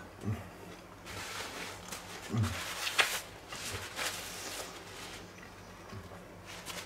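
Quiet chewing and breathing of someone eating a sandwich, with a paper towel rustling and crackling against the face as the mouth is wiped a few seconds in.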